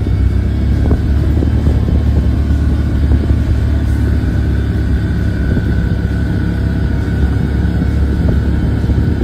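Side-by-side UTV running along a dirt trail, a steady low drone of engine and drivetrain with no change in pace.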